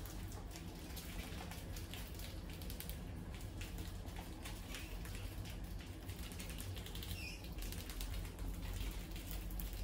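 Many wild mice scurrying and scrabbling, with a dense, irregular patter of small claws clicking and scratching on the floor and the grain. A brief high squeak comes about seven seconds in.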